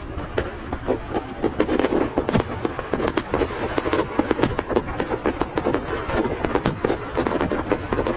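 Fireworks display going off: a dense run of overlapping cracks and pops, several a second, louder from about two seconds in.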